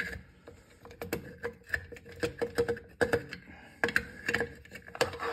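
Wooden fore-end of a Remington Model Four rifle being fitted over the recoil spring and action bars, its wood and the rifle's metal parts giving an irregular run of small clicks and knocks.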